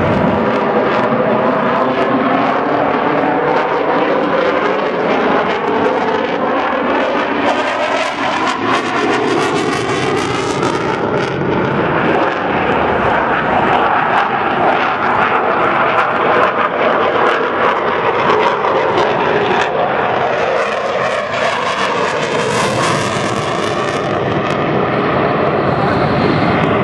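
Eurofighter Typhoon's twin EJ200 turbofan jet engines, loud and continuous, as the fighter passes and banks overhead. The sound has a sweeping, phasing quality that rises and falls in pitch as the jet moves.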